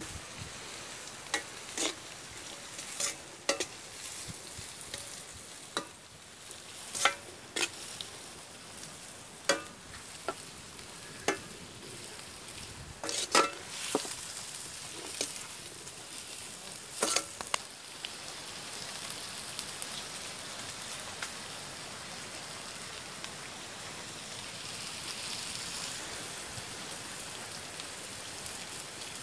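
Chopped small onions and green chillies sizzling in oil in a black iron kadai over a wood fire. A long metal slotted spoon clinks and scrapes against the pan in sharp strokes during roughly the first half. After that the frying goes on as a steady, even sizzle.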